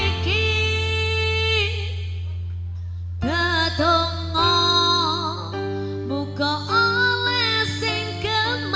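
A woman singing a Javanese song into a microphone with ornamented, gliding melody lines over live band accompaniment and a steady bass. Her voice breaks off for about a second a little before the middle, then comes back in.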